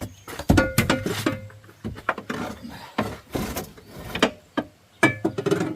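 Irregular metal clanks and knocks, some ringing briefly, from tools and steel parts as a Cub Cadet riding mower's deck hanger bracket is worked loose.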